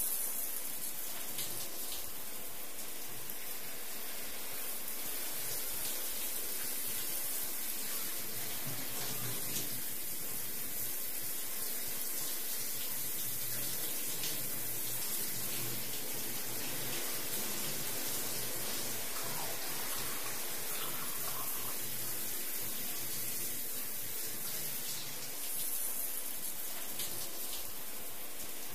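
Shower spray running steadily, a constant hiss of water falling in a glass shower stall, with a brief louder surge near the end.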